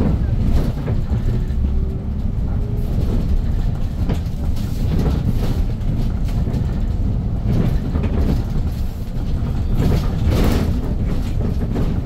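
Cabin ride noise of a Hyundai New Super Aerocity city bus under way: a steady low rumble from its C6AF Q290 CNG engine and the road, with a few short rattles or clatters of the cabin fittings, the loudest near ten seconds in.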